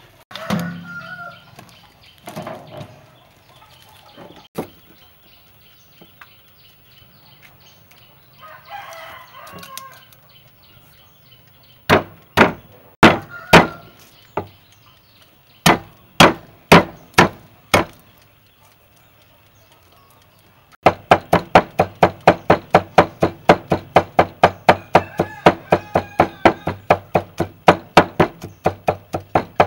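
Meat cleaver cutting garlic on a thick wooden chopping board. First come two groups of about six separate knocks, then a fast, steady mincing at about five strikes a second that starts about two-thirds of the way in.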